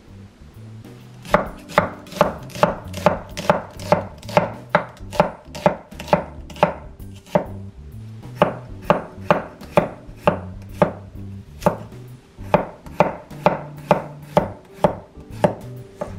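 Wide-bladed kitchen knife slicing garlic cloves and bacon on a wooden end-grain chopping board: a steady run of knife knocks on the wood, about two or three a second, broken by a couple of short pauses.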